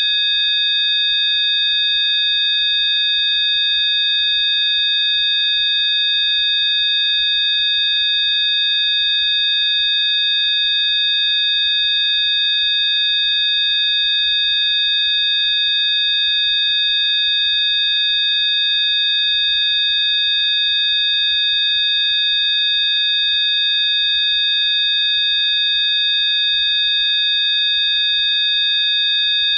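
Electronically generated Rife frequency tones: several high, steady sine tones sounding together as one unchanging, unbroken hum-like chord.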